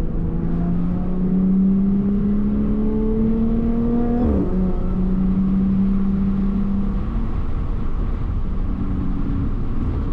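Supercharged Audi V6 engine pulling through a gear, its note rising steadily for about four seconds. It drops sharply at an upshift, then holds a steady, lower note.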